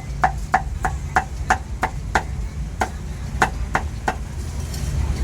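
Cleaver chopping roast meat on a chopping block, sharp strokes about three a second with a short pause, stopping about four seconds in, over a low street rumble.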